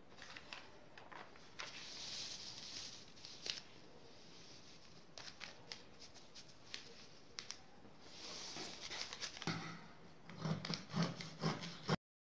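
Hands rubbing and smoothing a paper pattern over folded knit fabric, with soft rustles and small taps. In the last couple of seconds scissors snip through the stacked fabric layers in a quick series of cuts.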